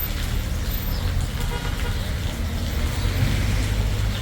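Steady low hum of a motor vehicle running.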